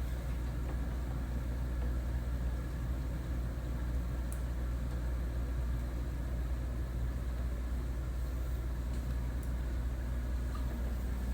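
2000 Mitsubishi Mr. Slim ceiling-cassette air conditioner indoor unit running in cooling mode: the fan and airflow make a steady low hum with a faint, steady high whine.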